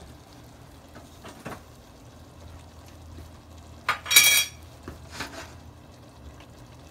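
Kitchenware handling: a few light knocks, then a loud ringing metal clink about four seconds in and a softer one about a second later, like a utensil striking a dish. A faint low hum runs underneath.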